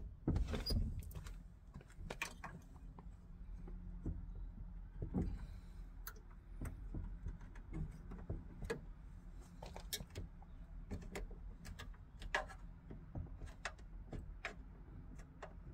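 Irregular small clicks, taps and rattles of hands fitting a window frame and its clips into a Fiat 126 door, with the loudest knocks just after the start.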